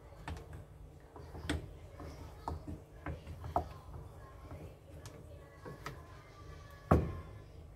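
Chopsticks stirring thick red bean batter in a stainless steel bowl, knocking against the bowl in irregular clicks and taps; the loudest knock comes near the end.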